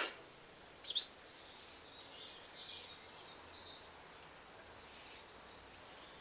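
Birds chirping faintly, with two sharp clicks about a second apart near the start.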